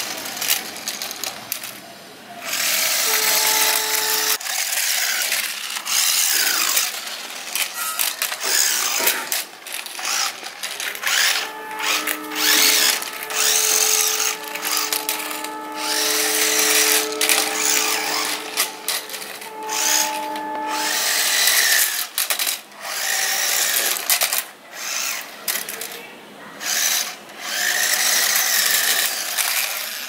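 Small electric motor of a remote-control toy sports motorcycle whining as it is driven, rising and falling many times as the throttle is worked.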